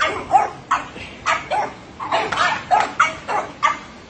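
Small French bulldogs barking excitedly in a rapid string of short, high barks, about three a second.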